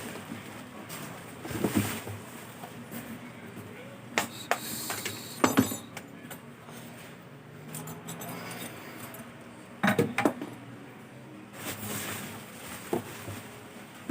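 Irregular knocks, clicks and clinks of laptops and their packaging being handled during unboxing, with louder clusters about four to six seconds in and again near ten seconds.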